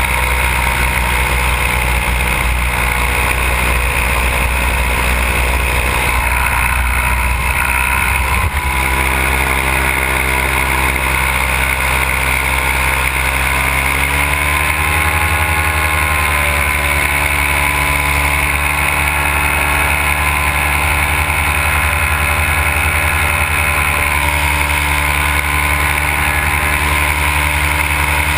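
Simonini two-stroke paramotor engine and propeller running steadily in flight, heard up close from the pilot's harness. The engine note shifts about eight seconds in and rises slightly around fourteen seconds before holding steady again.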